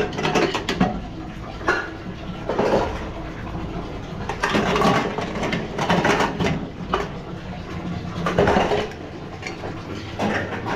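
Dishes and pots clattering, with irregular knocks and clinks of tableware.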